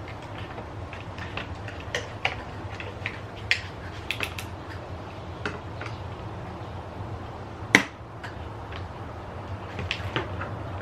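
Scattered sharp clicks and snips of a cutter cutting the ties that lash a BB gun into its packaging, with one louder snap about eight seconds in. A steady low hum runs underneath.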